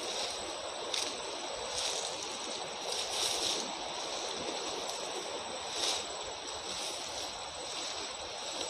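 Rustling of tall grass and undergrowth as a person pushes through it on foot, with several sharper swishes of stems and leaves, one every second or two.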